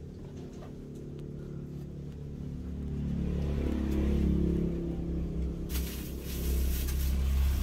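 A motor vehicle's engine going by: its hum builds over the first few seconds and is loudest about four seconds in. A steady hiss joins it about six seconds in.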